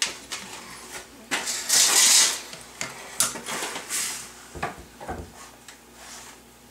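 A toddler rummaging in a kitchen drawer: items rustling and knocking, with a loud rustle about two seconds in and a few sharp clacks as a plastic egg tray is pulled out and handled.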